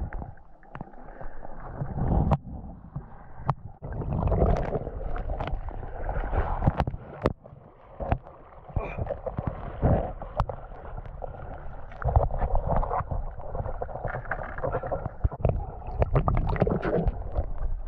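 Shallow stream water splashing and sloshing as hands reach in and lift out a crayfish, with scattered sharp clicks and knocks from handling.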